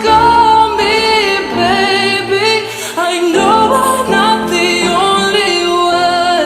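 Music: a woman's voice singing a wordless, sliding vocal line over piano accompaniment.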